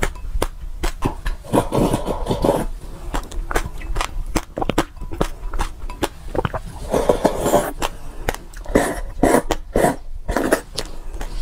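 Close-miked mouth sounds of a person eating mixed seeds in liquid from a glass bowl: many small sharp wet clicks, with a few longer slurps as the bowl is tipped to the mouth.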